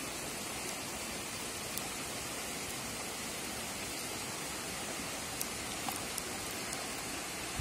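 Steady, even outdoor hiss, like rushing water, with a few faint soft clicks scattered through it.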